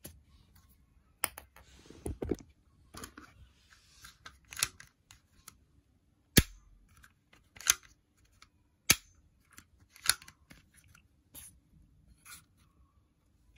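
Hard plastic clicks and taps from handling a toy bow-style foam dart launcher and pushing a foam dart into its barrel: about a dozen separate sharp clicks, the loudest about six seconds in.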